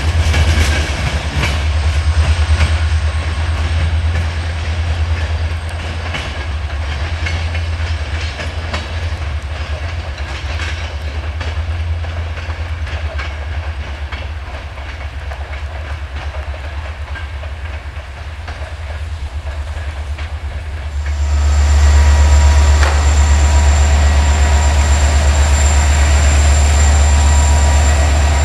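A departing train's wheels clicking over rail joints, fading as it pulls away. About 21 s in, this gives way abruptly to a louder, steady low drone of a diesel locomotive idling, with a thin high whine above it.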